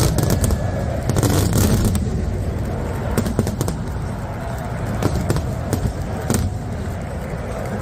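Fireworks going off over a stadium, with irregular sharp bangs and pops scattered across a dense, steady low rumble.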